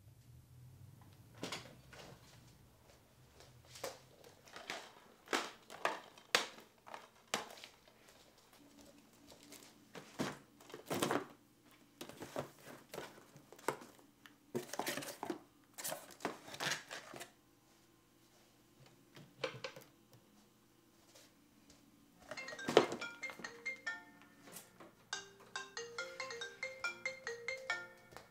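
Household handling noises: a string of knocks, thunks and clatters as things are rummaged through and moved about in a cardboard box. About 25 seconds in, a mobile phone ringtone starts, a quick repeating marimba-like melody.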